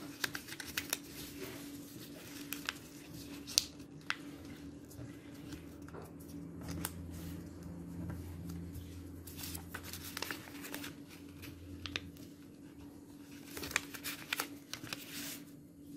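Origami paper rustling and crinkling as it is folded and creased by hand, with frequent short, irregular taps and scrapes of paper and fingertips on the tabletop. A faint steady hum lies underneath.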